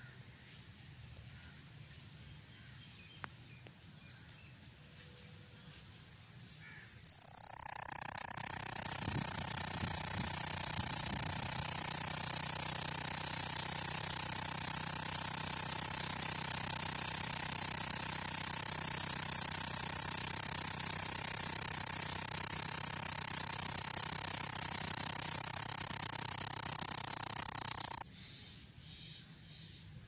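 Cicada singing: a loud, steady, high-pitched buzz that starts abruptly about seven seconds in and cuts off suddenly about two seconds before the end.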